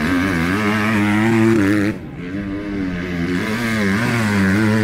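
Motocross bike engines revving hard, the pitch rising and dropping with the throttle. About two seconds in, the sound changes abruptly to a second bike, whose engine climbs again as it passes.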